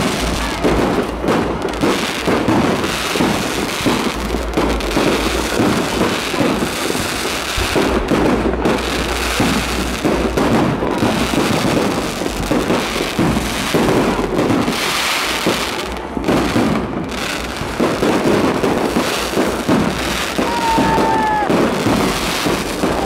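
Aerial firework shells bursting overhead in a dense, continuous barrage of bangs and crackling, with no pause between volleys.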